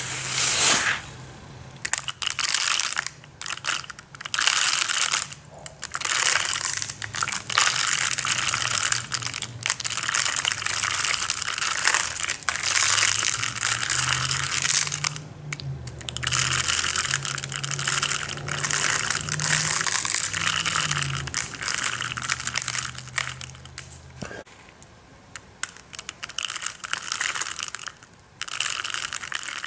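Tiny aquarium gravel substrate being handled: a dense, crunching clatter of many small stones rubbing and tumbling together. It comes in long stretches with short breaks between them.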